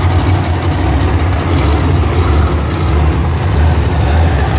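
Monster truck engine running with a steady, deep rumble as the truck drives on the dirt arena floor.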